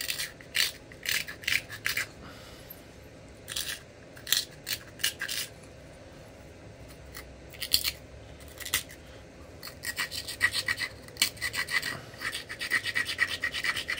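An abrader scraped back and forth along the edge of a flint preform in short rasping strokes, grinding the edge to prepare a platform for removing a flake. The strokes come in bunches, thickest and fastest near the end.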